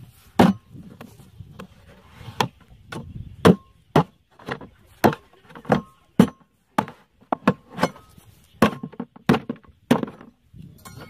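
Machete hacking at a plastic jerrycan snake trap, cutting it open: a string of sharp chops, about two a second.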